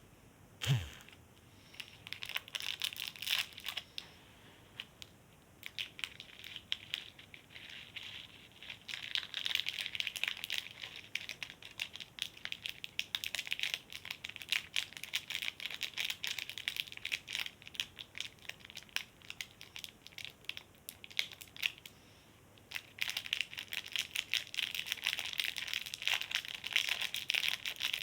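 Strawberry slime being squished and worked as sprinkles are mixed in, making dense runs of small sticky crackles and pops. There is a single thump just under a second in, and the crackling eases off briefly twice.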